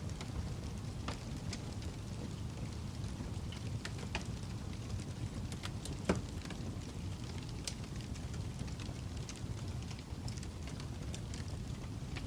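Campfire crackling: a steady low rumble of burning wood with scattered sharp pops and snaps, one louder pop about six seconds in.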